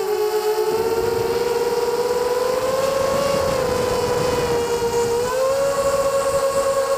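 FPV quadcopter's electric motors and propellers whining steadily, the pitch sagging and rising slightly with the throttle and stepping up about five seconds in.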